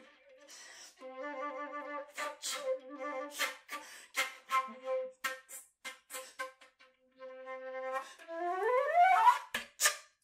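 Concert flute playing held low notes interrupted by breathy, hissing consonant strokes as syllables are whispered, not voiced, into the instrument, the air rushing through the tube. Near the end it plays a quick rising flourish, then stops.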